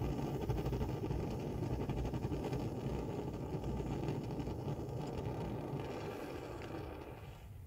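Barthel petrol camping stove burner, freshly lit for the first time, burning with a steady rushing flame noise that fades away over the last two seconds as the flame dies down.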